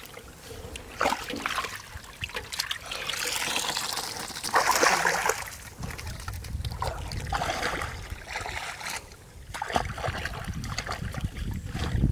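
Muddy water splashing and sloshing as hands and a plastic basket scoop through a shallow flooded ditch, in irregular bursts with a louder splash about five seconds in.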